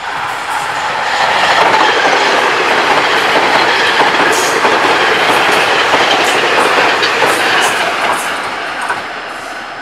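Taiwan Railways Tze-Chiang Express electric multiple unit passing close by at speed: a loud rush of wheels on rail that builds over the first second and then holds. In the second half, a run of sharp wheel clicks over the rail joints comes through before the sound eases off near the end.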